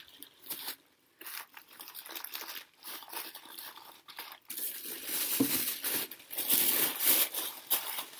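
Packing paper and plastic wrapping crinkling and rustling as a pair of sandals is unwrapped by hand, in short irregular crackles that grow denser and louder about halfway through.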